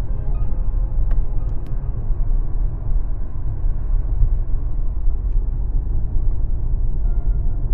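Mazda CX-30 under way: a steady low rumble of engine and road noise, with two faint clicks about a second in.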